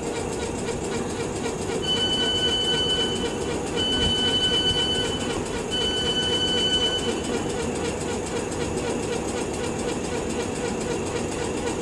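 South Western Railway Class 455 electric train standing at the platform, its equipment humming steadily. Three long electronic beeps at one pitch sound about two, four and six seconds in.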